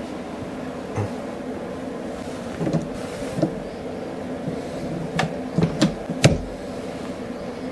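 Cast lead bullets being sized in a cast-iron reloading press with a .446 sizing die: a few scattered short metal clicks and knocks, the sharpest about six seconds in, over a steady low hum.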